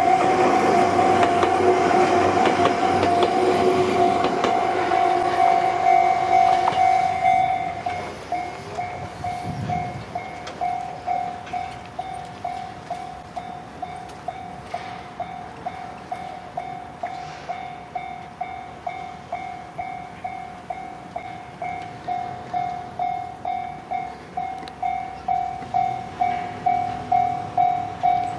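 Japanese level-crossing warning bell ringing with its repeated electronic ding at about two strokes a second, while a train passes with loud rumbling and clatter. The train noise stops about seven seconds in, leaving the bell ringing alone, growing louder near the end.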